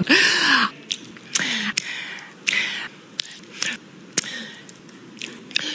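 Wet lip smacks and mouth clicks from a woman at a close microphone, between several heavy breaths drawn in. A couple of short voiced sounds slide down in pitch, with no words.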